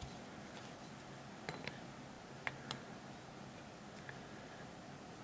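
A few light clicks of small metal carburetor parts and tools being handled: two pairs of clicks about a second apart, then a fainter single one.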